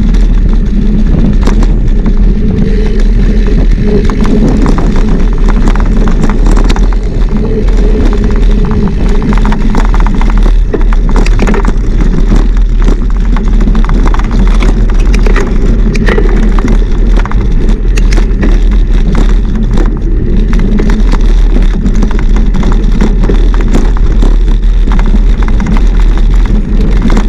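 Wind buffeting a bike-mounted action camera's microphone as a steady loud low rumble, with many small rattles and knocks from a mountain bike ridden over rough ground.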